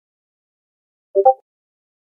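A short electronic chat-message notification blip of two quick rising notes, a little over a second in, with digital silence around it.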